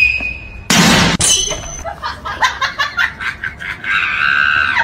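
High-pitched laughter in short, rapid bursts, with a brief loud burst of noise about a second in.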